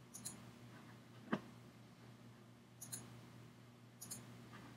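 Computer mouse buttons clicking quietly: short double clicks, each a press and release, come near the start, about three seconds in and about four seconds in. A single louder knock comes about 1.3 seconds in, over a faint steady low hum.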